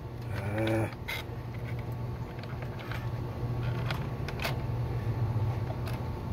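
Plastic creaking and a few sharp clicks as the latches of a fuel pump module's plastic housing are popped open and its sections pulled apart, over a steady low hum.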